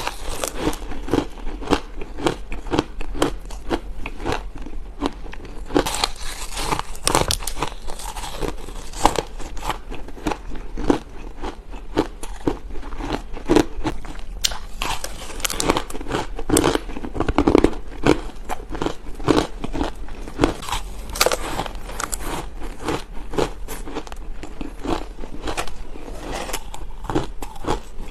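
Ice being bitten and chewed: a steady run of sharp, crisp crunches, several a second.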